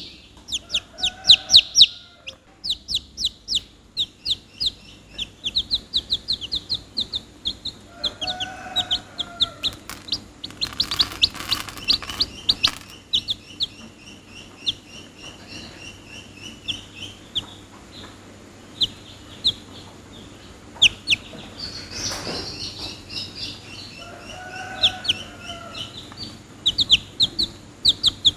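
Domestic chicks peeping: runs of rapid, high, short chirps that come in bursts and lulls. Three brief lower calls come in about a second in, near the middle and near the end.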